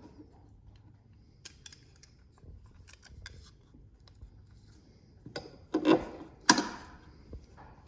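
Light clicks and clinks of small tools and metal hardware being handled, with two louder knocks about six seconds in.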